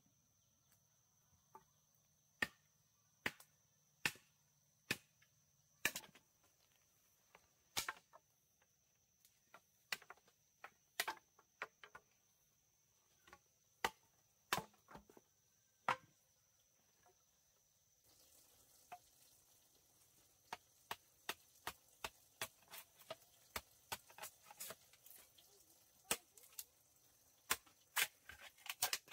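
Machete chopping bamboo: sharp single strikes about a second apart, coming faster and closer together in the last ten seconds. A steady high insect drone runs underneath.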